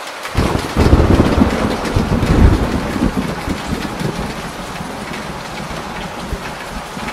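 Heavy rain pouring off a corrugated roof with a steady hiss, and a loud roll of thunder that breaks in just after the start, rumbles for about three seconds and fades away.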